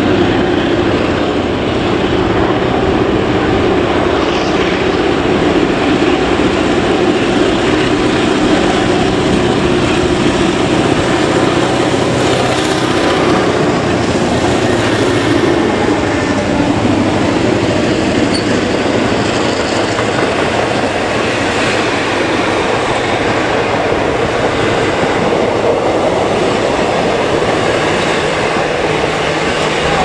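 A diesel-hauled heritage train passing close through a station: a steady, loud rumble and rush of wheels and carriages on the rails.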